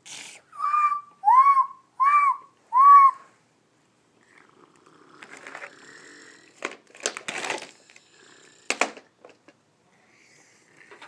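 Four short whistle-like notes, each rising and falling in pitch, about two-thirds of a second apart. Then, from about four seconds in, small rocks rattle and clatter out of a plastic toy dump truck as its bed is tipped up, with a few sharper knocks.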